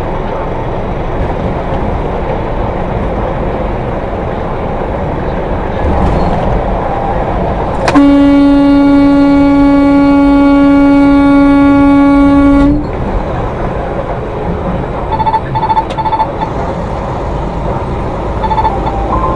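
Steady road and engine rumble inside a semi truck's cab, then one long horn blast of about five seconds, about eight seconds in, honked at a tractor-trailer coming over into the lane close in front. A few short beeps follow near the end.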